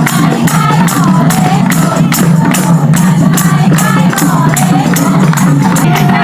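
Loud folk dance song with a fast, steady percussion beat and a singing melody line, accompanying a Teej dance performance.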